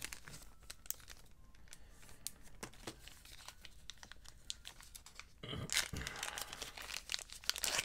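Plastic packaging crinkling and tearing, with scattered small clicks, as a deck of game cards is unwrapped and handled; the rustling grows loudest over the last couple of seconds.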